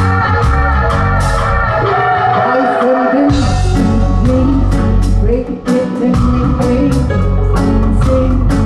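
Live reggae band playing: a woman's lead vocal over bass, guitar and drums with a steady off-beat rhythm. The bass drops out briefly twice, the second time a little past halfway.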